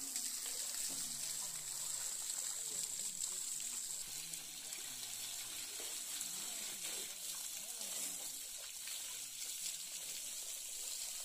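Water spraying while a tractor is washed down, a steady hiss.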